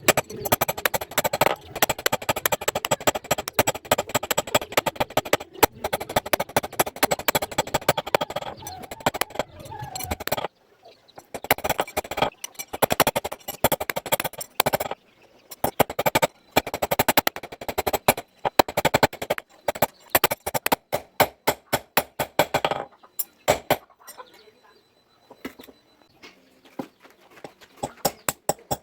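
Rapid, repeated hammer blows on steel during forging, several strikes a second, breaking off briefly about ten seconds in and again a little before the end.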